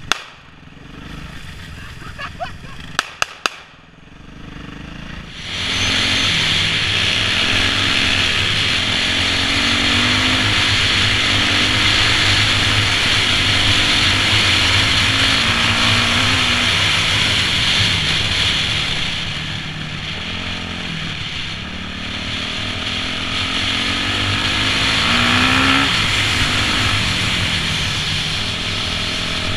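2008 Yamaha YZ450F's single-cylinder four-stroke engine heard from onboard. It runs low and quiet at first, with three sharp clicks about three seconds in. About five seconds in it gets much louder, its pitch climbing and dropping again and again as the throttle opens and closes, over a steady rush of wind noise.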